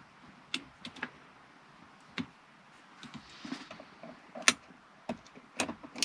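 Scattered small clicks and rustles as a charging cable is handled and plugged in, the sharpest click coming about four and a half seconds in.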